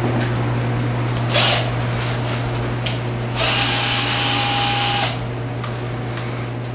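A power drill runs at a steady speed for about a second and a half near the middle, over a steady low hum. There is a short burst of noise just before it.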